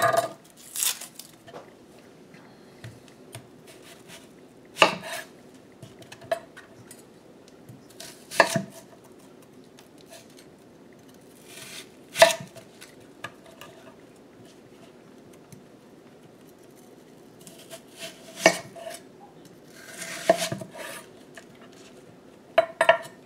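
Chef's knife cutting a peeled yellow onion on a wooden cutting board: single sharp knocks of the blade reaching the board, spaced a few seconds apart, with a faint steady hum between them.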